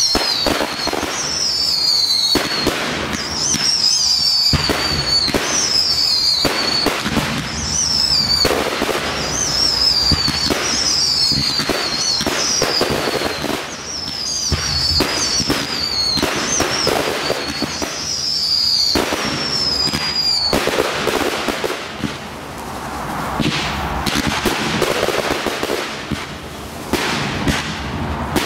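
Fireworks display: a rapid string of whistling fireworks, each whistle falling in pitch, over continuous bangs and crackling. About two-thirds of the way through the whistles stop and the crackling and bangs carry on.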